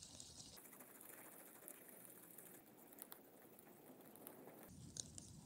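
Near silence with faint, irregular ticking: a rubber-powered balsa model's propeller being flicked round by finger to wind its rubber motor.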